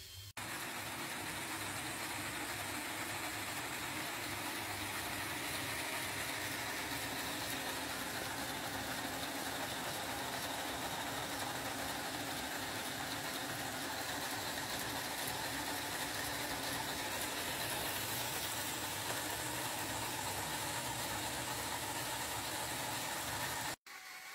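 Motor-driven LEGO Technic multi-cylinder engine model running: a steady whirring clatter of plastic pistons, gears and the electric drive motor. It starts abruptly about half a second in and cuts off just before the end.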